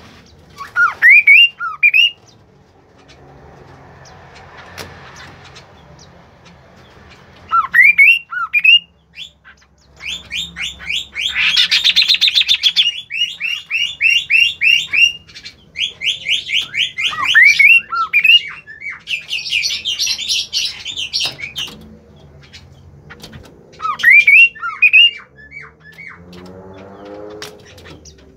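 A songbird singing loudly in phrases: short groups of upward-sweeping whistles, and long fast trills of rapidly repeated notes, the loudest about 12 s in. A lower call near the end.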